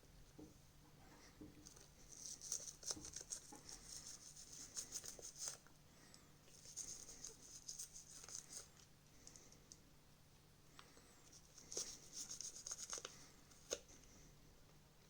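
Faint scratchy scrubbing on a part of a disassembled TV remote as it is cleaned, in three spells of a few seconds each with small clicks and taps.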